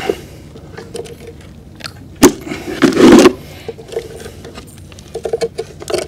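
Knocks and clatter of a fishing-pole rest being lifted and set back down on the harbour steps: a sharp knock about two seconds in, then a loud rattling scrape around three seconds, with smaller clicks between.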